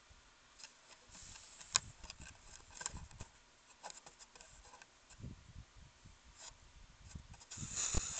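Raccoon's fur and paws brushing and scratching against the camera at close range: irregular rubbing and scraping with scattered sharp clicks, one sharp click early on and a louder scrape near the end.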